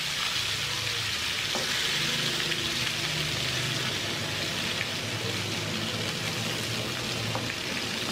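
Chicken pieces deep-frying in hot oil: a steady sizzle with a few small pops.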